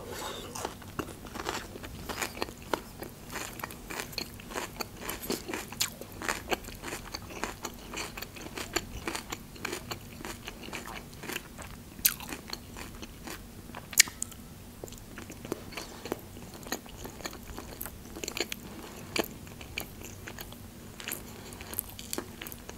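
Close-up crunching and chewing of a raw shredded vegetable salad of cabbage, carrot and pepper, many small crisp crunches one after another. Around the middle, a metal fork clicks sharply twice against the glass salad bowl.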